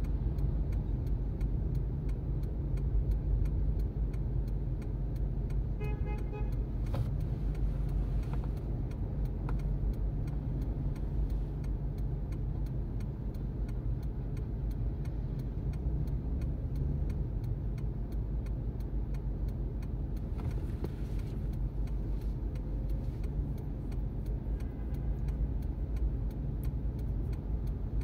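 Inside a stationary 2007 Toyota Prius: steady low rumble of cabin and surrounding traffic noise, with the turn-signal indicator ticking evenly. About six seconds in, a short pitched beeping sounds, then a single knock.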